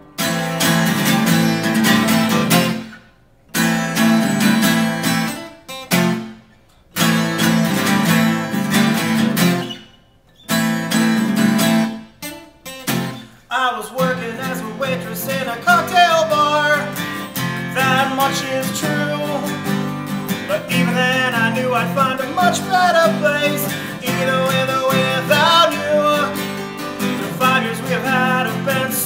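Two acoustic guitars strummed together. In the first half the chords come in stop-start bursts with sudden breaks. Then the strumming runs on steadily with a man singing over it.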